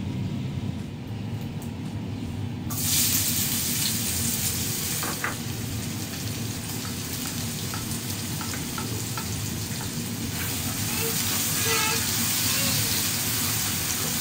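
Chopped red onion and crushed garlic sizzling in hot oil in a pot. The sizzle starts suddenly and loudly about three seconds in and then runs on steadily, with small scrapes and clicks of a spoon stirring, over a low steady hum.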